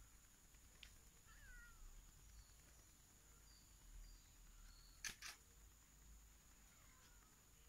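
Very quiet background with a steady faint high whine and a few faint, short falling animal calls. Two sharp clicks come close together about five seconds in.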